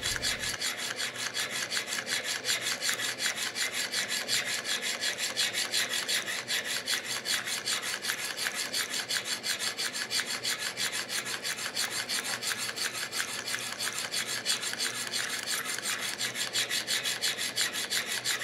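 Steel burnisher rubbing back and forth over the pivot of a Hamilton 992 third wheel as it turns in a Jacot tool, in quick, even strokes, one after another. The burnishing polishes scoring off the pivot to cut its friction.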